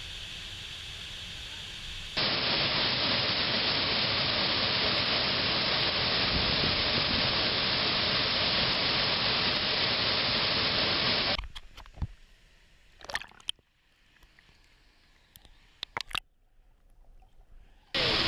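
Rushing water of a waterfall and stream current, a loud, even roar that starts abruptly about two seconds in. It cuts off sharply about eleven seconds in, leaving near silence broken by a few scattered clicks.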